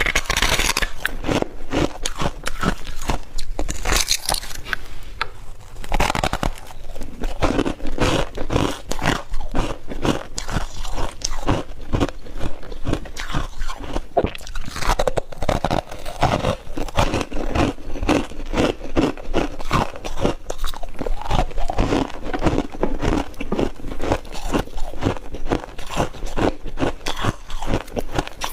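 Close-miked chewing of mouthfuls of freezer frost: a dense, unbroken run of crisp crunches.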